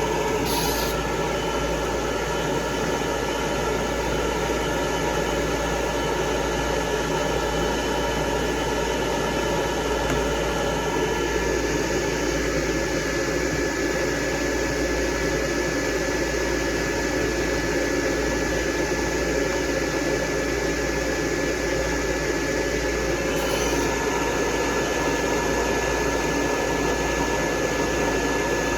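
Electric dryer blowing steadily on a dog's coat: an even rush of air with a thin, steady whine.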